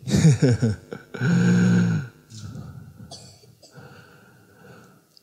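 A man's voice: a few quick syllables, then a held, steady vowel-like sound for about a second. After that it drops to faint, low background sound in the hall.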